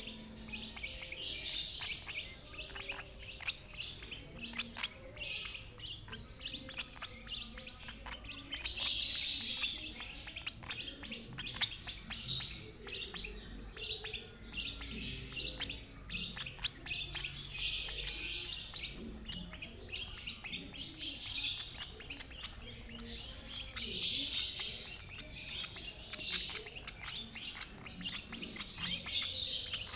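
Lovebirds chirping: bursts of high, squeaky calls a second or two long every few seconds, with many short ticks between them. These are the begging calls of a young lovebird being hand-fed (regurgitation-fed) by another bird.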